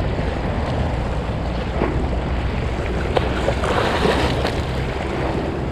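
Choppy harbour waves lapping against a breakwater, with wind rumbling on the microphone; a wave splashes against the edge about four seconds in.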